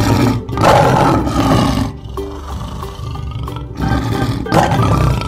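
Lion roaring twice, a long roar at the start and another near the end, over light background music.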